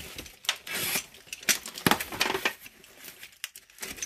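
Box cutter slitting the packing tape on a cardboard carton, then the cardboard flaps being pulled open: a string of short, irregular scrapes and clicks.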